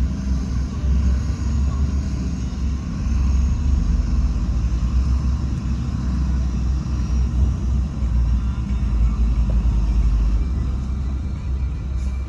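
Heavy diesel earthmoving machinery running steadily with a low rumble.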